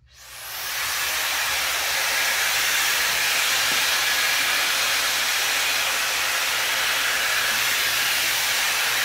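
Hot-air blow-dryer brush with a high-speed 110,000 RPM motor switched on, its airflow rising to a steady hiss within the first second, then running steadily.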